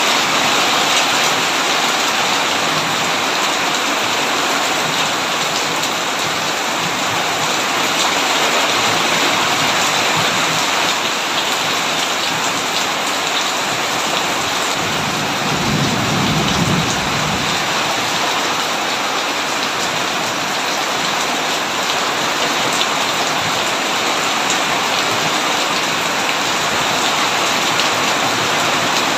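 Heavy rain falling steadily on a tin roof, with a low roll of thunder about halfway through.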